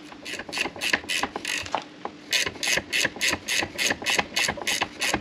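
Socket ratchet clicking in quick short back-and-forth strokes, about five a second, with a brief pause about two seconds in. The ratchet is winding in a long bolt that draws a new control arm inner bush into the lower control arm.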